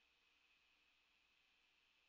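Near silence: the track holds no recorded sound, only a faint steady hiss.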